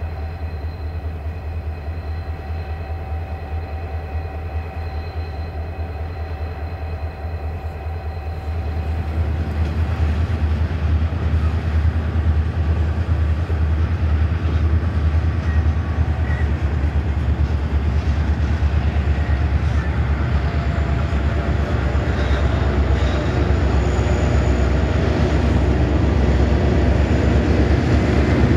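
Diesel-electric freight locomotives running as a multi-unit consist, a steady engine drone with a strong low rumble. About eight seconds in it gives way to the louder rolling rumble and clatter of freight wagons passing, and locomotive engines swell again near the end.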